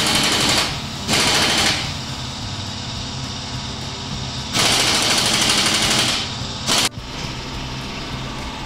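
Pneumatic impact wrench hammering on a car's front wheel fastenings during CV joint replacement. It comes in four rattling bursts: one running as it starts, a short one about a second in, a longer one of about a second and a half past the middle, and a brief one near the end.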